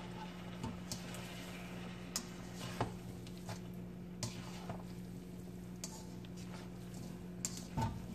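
Spatula and fork stirring and tossing pancit noodles in a wok: scattered soft clicks and scrapes of the utensils against the pan, over a steady low hum.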